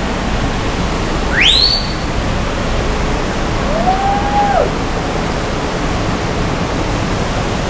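Waterfall rushing steadily. A short rising whistle about a second and a half in, and a brief held tone around four seconds.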